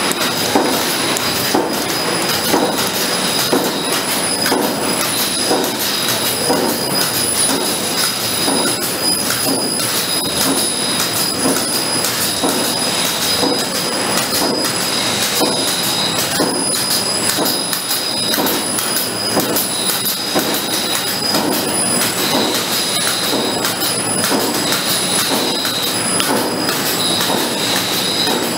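Link label printing press running: a loud, even mechanical clatter with steady high whines and a rough repeating pulse underneath. A further high tone cuts in and out repeatedly in the second half.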